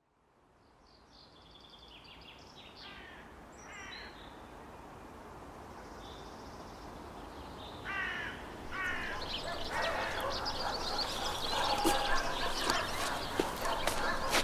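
Outdoor ambience fading in from silence, with birds calling in short repeated chirping phrases. From about ten seconds in the background grows louder and busier, with a few sharp knocks near the end.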